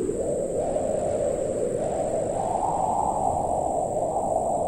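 Strong wind blowing, added as a sound effect: a steady low rushing that swells a little in the middle.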